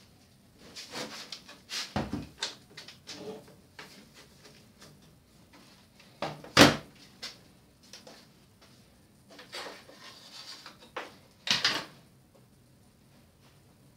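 Knocks, scrapes and rattles of a bare LCD panel with a thin sheet-metal back being handled and shifted on a wooden workbench. A single sharp knock comes about six and a half seconds in, and another short burst of knocks a couple of seconds before the end.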